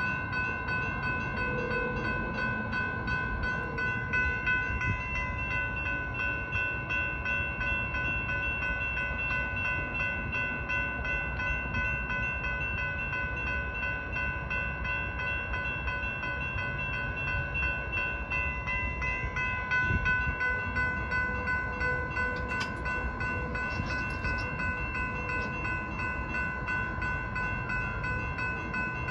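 Railroad grade-crossing warning bell ringing steadily without a break, a bright high ringing that stays at the same pitch throughout.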